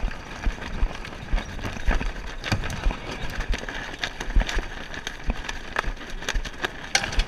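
A Club 420 sailing dinghy under way in wind and chop: steady wind and water noise with many irregular knocks and rattles from the hull, boom and rigging.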